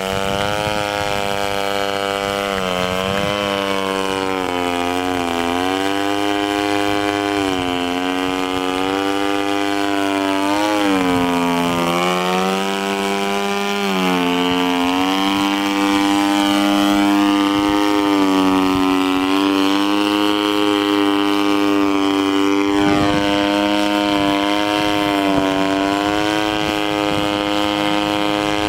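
Gasoline engine and propeller of a large radio-controlled aerobatic model airplane running in flight. Its pitch dips and climbs again several times in the first half, then holds a steady, slightly higher note.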